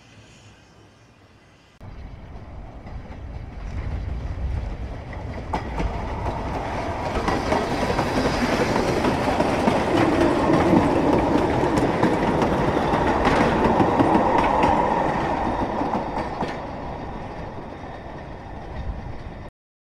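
Narrow-gauge goods train of wooden and slate wagons running over the rails, with a steady clickety-clack of wheel clicks over the rail joints. It comes in suddenly about two seconds in, is loudest around the middle, eases off, and cuts off abruptly just before the end.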